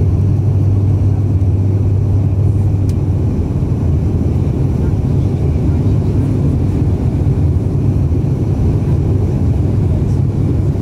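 Loud, steady cabin drone of an ATR 72-600's Pratt & Whitney PW127 turboprop and its spinning propeller, heard from a window seat right beside the engine during the descent to land.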